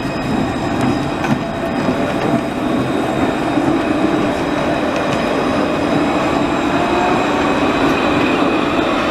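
Alstom Citadis low-floor electric tram running past close by: a steady rolling rumble of wheels on rail with a thin high-pitched whine held over it.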